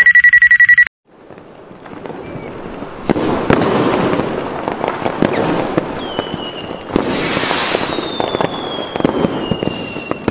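A rapid run of short electronic beeps at one pitch lasting under a second, then fireworks: dense crackling and popping with sharp bangs and a long falling whistle.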